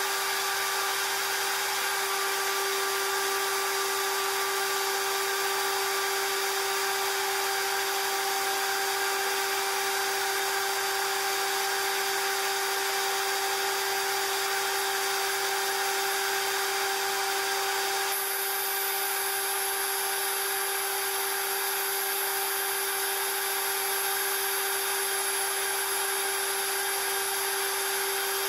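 CNC lathe spindle running at a steady speed with a constant high whine and hiss, while a small drill cuts into the end of the spinning aluminium part.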